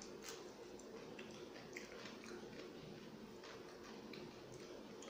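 Faint chewing of a mouthful of mutton biryani eaten by hand, with many soft wet mouth clicks, over a steady low hum.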